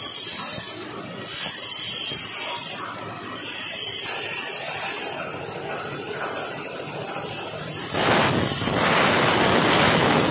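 Handheld plasma cutter: high hissing of the torch's compressed air in spurts, then about eight seconds in a louder, fuller rushing hiss as the arc cuts into the carbon steel plate, throwing sparks.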